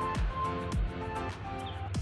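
Background music with a steady beat: a deep kick drum about twice a second, light ticking percussion, and a melody of held notes.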